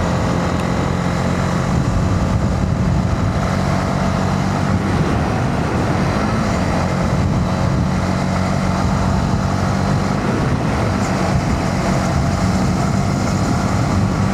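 Honda CB125R's single-cylinder 125 cc engine running steadily under way, with a broad rushing noise of riding over it.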